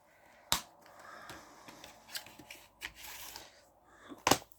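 A plastic Blu-ray case being handled. There is a sharp click about half a second in and another near the end, with soft rustling and scraping of plastic between them.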